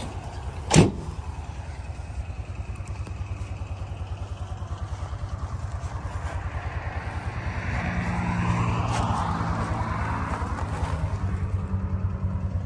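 The truck's 6.7-litre Power Stroke V8 diesel idles with a steady, even pulse. A sharp click comes a little under a second in. A passing vehicle's noise swells and fades around the middle.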